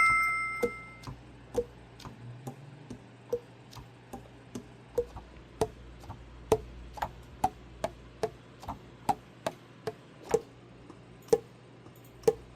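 Alto saxophone keys being worked without blowing: the pads close on the tone holes with hollow pops, about two a second, each at a slightly different pitch. The passage opens with a short ringing tone.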